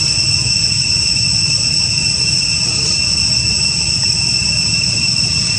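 Steady chorus of insects shrilling in several unbroken high tones, over a steady low rumble.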